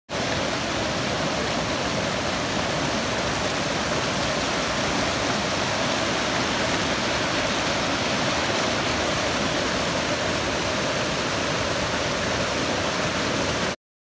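Rocky Mountain stream rushing in whitewater over rocks and under fallen logs: a steady, unbroken rush of water that cuts off suddenly near the end.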